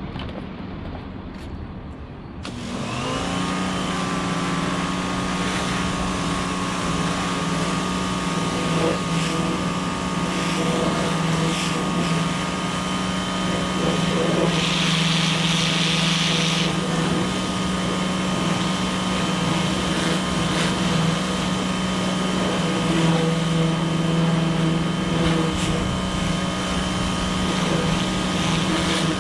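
Electric pressure washer starting up about two seconds in: its motor spins up quickly to a steady pitched hum and runs on, with a short burst of hiss about halfway through.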